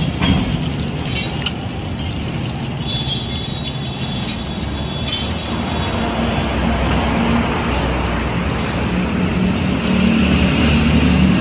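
Ashok Leyland Dost engine idling steadily with the radiator open while blue coolant is poured into the filler tank, the pour splashing more loudly in the second half. The coolant is going in with the engine running so that trapped air bleeds out of the cooling system.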